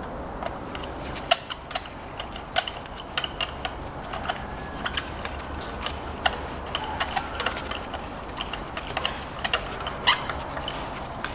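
Spark plug socket on a long extension being turned by hand to screw a new iridium spark plug into a Kia Ceed 1.4 GDI cylinder head. It makes irregular sharp metal clicks and ticks, a few a second.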